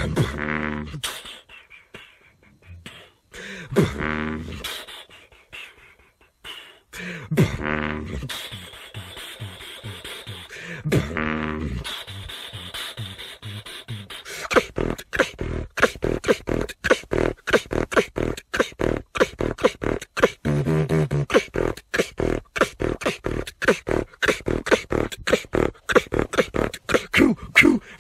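Solo vocal beatbox: for the first half, deep drawn-out bass sounds every three to four seconds with gaps between, then from about halfway a fast, dense beat of sharp mouth-made drum sounds with deep bass notes mixed in.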